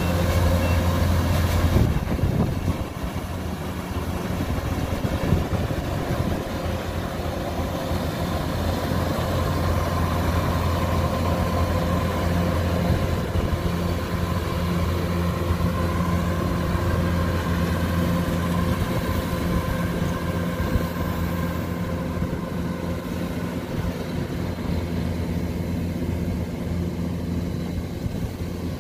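Kubota DC105X combine harvester's diesel engine running steadily under load as it cuts rice, a constant low hum that is a little louder in the first two seconds.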